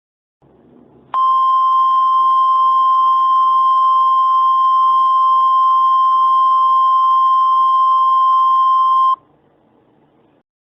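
NOAA Weather Radio's 1050 Hz warning alarm tone: a single loud, steady tone that starts about a second in, holds for about eight seconds and cuts off sharply, over a faint hiss of radio static.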